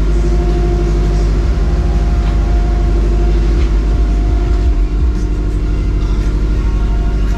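Toyota 86's flat-four boxer engine running steadily on fresh oil, just after an oil and filter change.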